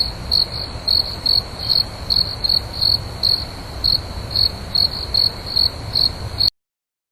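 Crickets chirping, a high chirp repeating about three times a second over a low rumble. The sound cuts off suddenly near the end.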